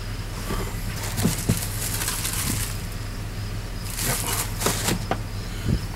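A 6.0 V8 truck engine running with a steady low drone, with two stretches of hissy rustling noise over it. The engine won't rev over 3,500 rpm.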